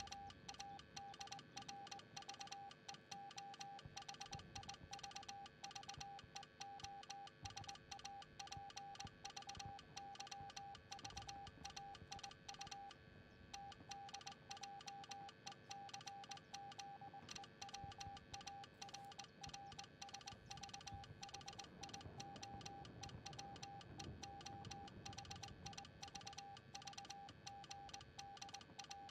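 Morse code practice tone: a quiet single-pitched beep keyed on and off in dots and dashes, sending at a steady rhythm with one short pause about halfway through.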